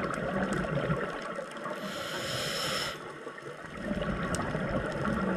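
Scuba diver's regulator breathing, heard underwater: exhaled bubbles gurgling, a sharp hiss of inhalation through the regulator about two seconds in that cuts off suddenly about a second later, then bubbling of the next exhalation from about four seconds.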